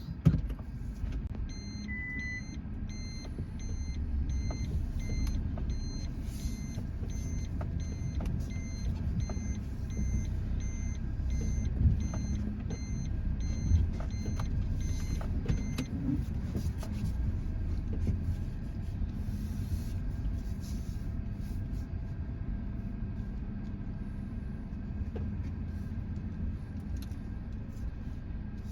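A car running with a steady low rumble, with a repeating electronic beep about once a second through the first half and a few brief thumps.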